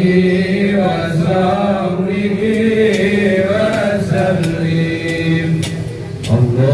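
Islamic devotional chanting (dhikr) in long, slowly wavering held notes, dipping briefly near the end before going on.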